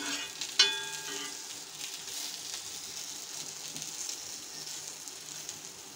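Fish pieces sizzling steadily in oil on a flat tawa griddle. About half a second in, a metal spatula clinks once against the griddle with a short ring.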